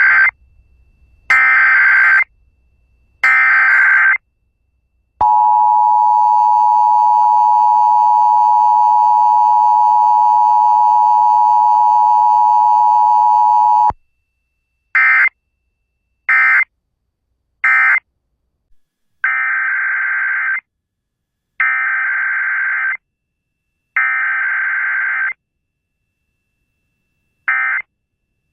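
Emergency Alert System test tones: three one-second bursts of the SAME digital header, then the two-tone attention signal held steady for about nine seconds, then three very short end-of-message bursts. A second, quieter set of three header bursts follows, with short bursts again near the end.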